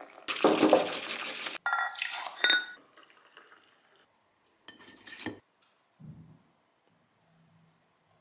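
Kitchen utensil sounds while cooking: a loud scraping rush for about a second, then a few ringing clinks of a utensil against dishware, followed by a couple of softer knocks.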